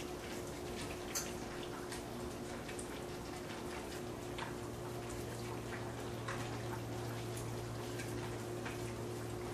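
Gloved hands mixing pork chunks through a wet marinade in a glass bowl: faint squelching with scattered small clicks, over a steady low hum.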